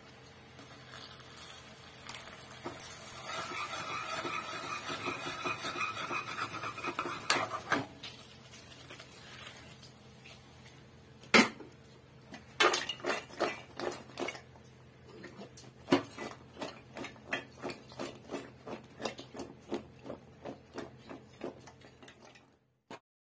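Butter and caramel sizzling and bubbling in a pot, growing louder over the first few seconds with a spoon scraping now and then. From about eleven seconds in, a metal spoon knocks against a steel bowl about twice a second as popcorn is mixed into the caramel.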